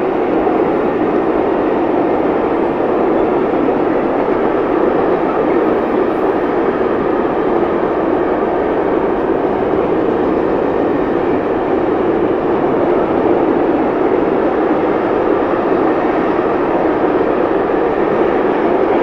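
Long container freight train passing at speed: a steady noise of wagon wheels running on the rails, constant in loudness throughout.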